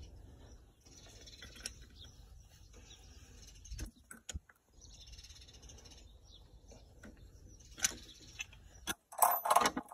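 Spanner clicking against the rocker arm adjuster lock nut on a Triumph Spitfire's valve gear as the nut is tightened back up after setting the valve clearance. A few scattered sharp metal clicks, with birds calling in the background and a brief louder harsh sound near the end.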